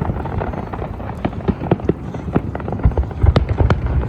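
Fireworks going off in a rapid, irregular series of sharp pops and crackles, thickest about three seconds in, over a steady low rumble.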